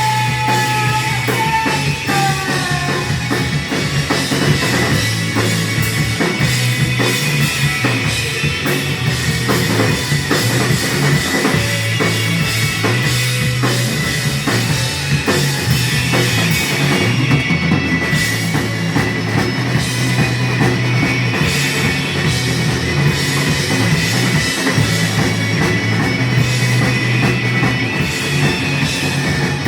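Loud rock music with a drum kit beating steadily under sustained instrument tones.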